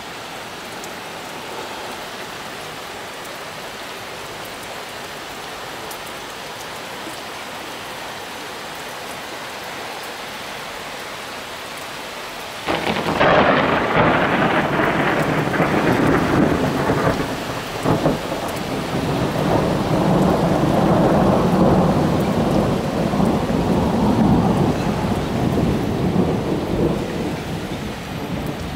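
Steady hiss of rain, then about halfway through a sudden loud clap of thunder from a forked lightning strike. It rolls on as rumbling thunder for more than ten seconds and slowly dies away near the end.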